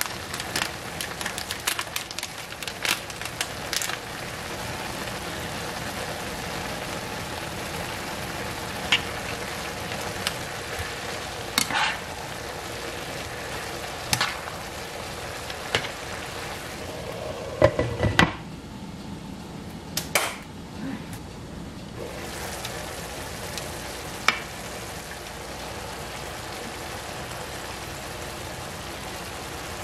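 Stir-fried noodles sizzling in a frying pan with a steady hiss. A spatula scrapes and taps against the pan in short clicks, many in the first few seconds and a few more up to about two thirds of the way through.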